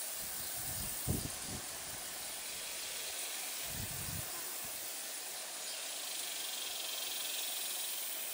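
Steady outdoor background hiss with a few soft low thumps, about a second in and again about four seconds in.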